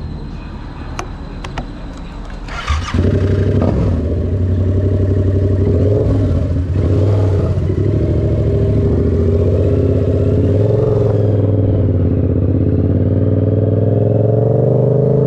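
Motorcycle engine started: a few clicks, a brief crank, and the engine catches about three seconds in. It then idles steadily, its pitch slowly rising near the end.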